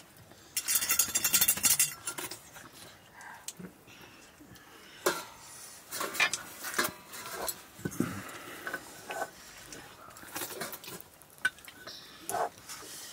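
Fingers scooping rice from stainless-steel plates, giving scrapes and light clinks of metal on metal. The loudest is a dense scraping rustle from about half a second to two seconds in, then scattered short clicks and scrapes.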